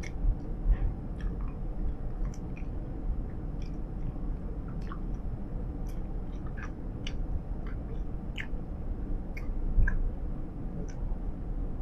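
Close-up gum chewing: irregular mouth clicks and smacks, roughly one or two a second, from bubble gum being chewed with the mouth partly open, over a steady low rumble.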